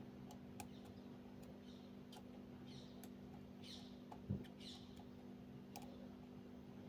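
Faint light clicks and short scrapes of a lock pick working the pin stacks inside a six-pin 'Magnum' euro cylinder lock, with a soft thump a little past the middle. A steady low hum lies underneath.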